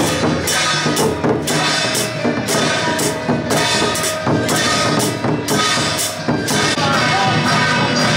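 Loud music with a steady drum-kit beat, about two strong hits a second, over dense pitched accompaniment.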